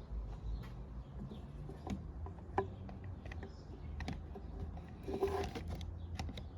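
Scattered light clicks and taps over a low steady hum, with a brief pitched squeak about five seconds in.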